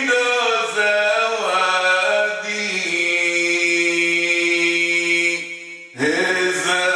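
A man chanting a poem in Comorian in a solo voice. His pitch moves through the opening phrase, then he holds one long steady note that fades out near the end, and he starts the next line just before the end.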